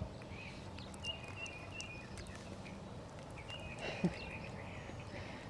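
Outdoor ambience: short high chirps repeating over a low steady hum, with one short sharp sound about four seconds in.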